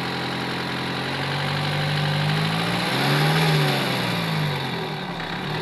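Diesel car engine with a misfire, idling, then given one short, gentle rev about halfway through: its pitch rises and falls back to idle.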